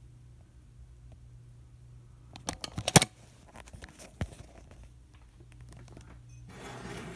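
Handling noise from the camera being picked up and moved: a few sharp clicks and knocks, the loudest about three seconds in, another a second later, and a brief rustle near the end, over a low steady hum.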